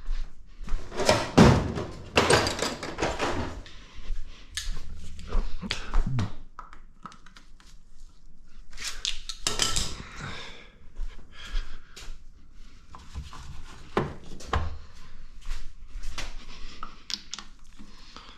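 Irregular knocks, clunks and short scrapes of hand tools and metal engine parts being handled while an engine is being reassembled, busiest in the first few seconds and again about ten seconds in.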